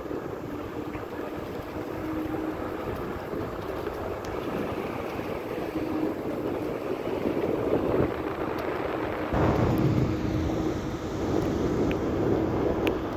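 Wind buffeting the microphone of a camera carried by a riding cyclist, with a faint steady hum underneath; a stronger, deeper gust comes in about nine seconds in.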